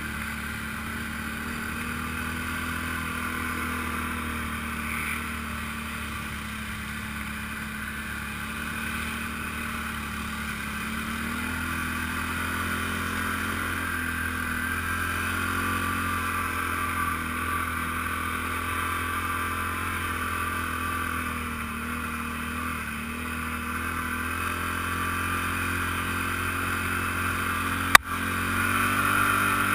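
ATV engine running at trail-riding speed, its pitch easing up and down a little with the throttle. A single sharp click comes near the end.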